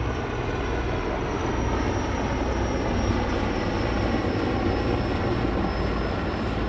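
Steady drone of aircraft engines, a continuous rumble with no break.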